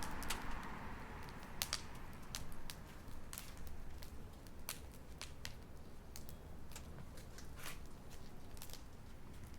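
Wood fire crackling in an offset smoker's firebox: irregular sharp pops, a few a second, over a low steady rumble.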